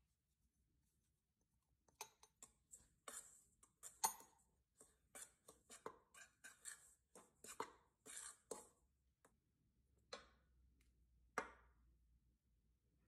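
A small metal utensil faintly clinking and scraping against a stainless steel stand-mixer bowl as dry ingredients are stirred by hand. A quick run of light taps and scrapes lasts several seconds, then come two single knocks near the end.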